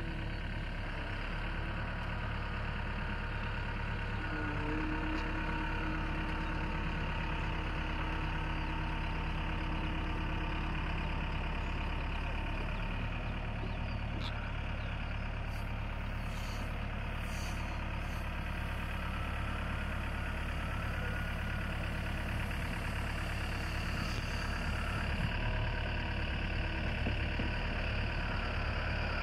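Caterpillar M313D wheeled excavator's diesel engine running steadily while the boom and bucket are worked and the machine swings.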